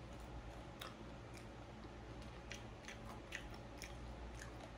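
Mouth chewing a fried Popeyes chicken nugget: faint wet chewing with a dozen or so small scattered clicks.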